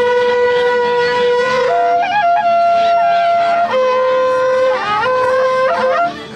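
Several wakrapuku, Andean trumpets made of cattle horn, blown together in long held notes that change pitch every second or two, with short slides between the notes. The sound breaks off briefly near the end.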